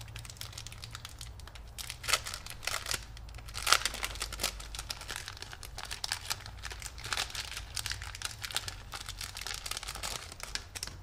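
Packaging of a sticker pack crinkling and rustling as it is handled and opened by hand, in irregular crackly bursts, loudest a little under four seconds in.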